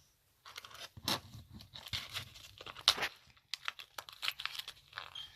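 Plastic packaging of a mini eraser set being torn open and handled: irregular crinkling and crackling, the sharpest crackle about three seconds in.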